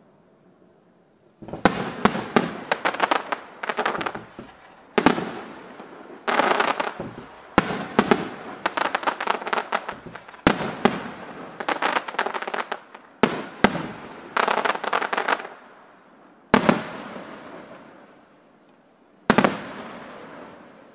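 Aerial firework shells bursting in quick clusters of sharp bangs and crackling, each burst trailing off. This starts after about a second and a half of quiet; near the end come two single loud bangs, each fading out slowly.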